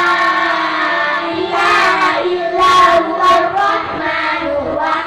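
A group of children singing in unison into handheld microphones over a loudspeaker system, holding long drawn-out notes.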